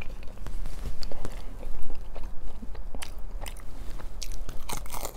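Close-up bites and chewing of a breaded fried chicken strip, with crisp crunching clicks that come thickest around three seconds in and again near the end.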